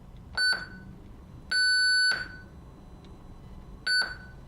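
Electronic beeps of one pitch: a short one, a longer one of about half a second, then another short one.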